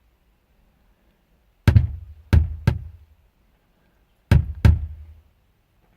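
Van speakers driven by a faulty Pumpkin car radio popping instead of playing sound. There are three sharp pops, each with a short low thump, about two seconds in, then two more a little past the middle.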